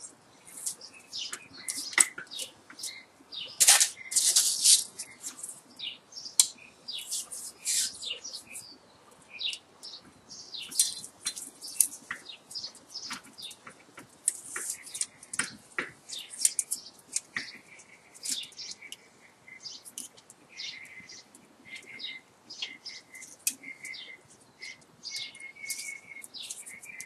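Enamelled copper magnet wire being worked by hand into the slots of an electric motor's stator: an irregular run of quick, high, crinkly scrapes and clicks as the strands rub against the slot insulation and the core.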